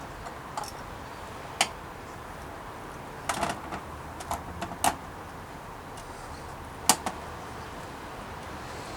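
Scattered sharp clicks and clacks of small metal parts and tools being handled while jockey wheels are refitted into a rear derailleur cage, about half a dozen in all, the sharpest one late on.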